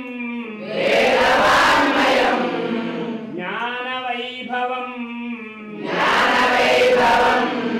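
A group of voices chanting in unison over a steady low drone, with two loud rushing swells of noise, about a second in and again around six seconds in.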